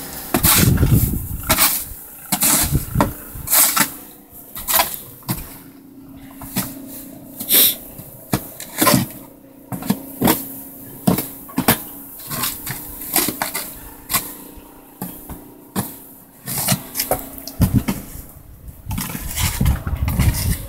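Plastic snow shovel scraping and pushing snow across steps in short scrapes about once a second, over a steady engine hum. Near the end this gives way to wind rumbling on the microphone.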